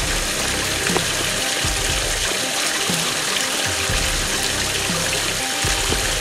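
Stream water running steadily over rocks, with low bumps as a collapsible plastic water container is handled and capped.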